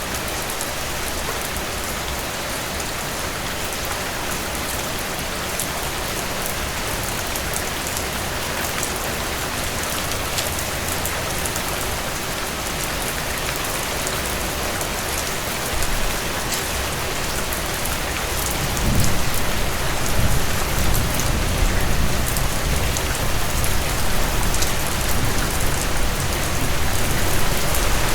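Steady heavy rain falling, a dense hiss of drops. About two-thirds of the way in, a low rumble comes up underneath and the rain grows louder.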